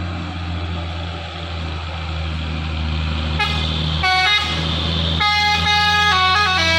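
Truck engine running steadily, then about three and a half seconds in a telolet basuri multi-tone air horn starts playing a tune of short notes that change pitch quickly.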